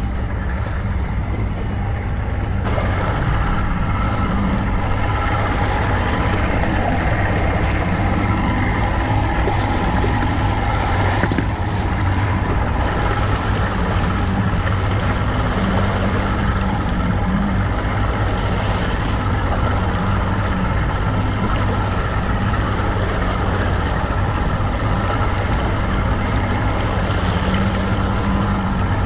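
Boat's outboard motor running steadily underway, with the wake churning and water rushing past the hull. It grows a little fuller about two seconds in.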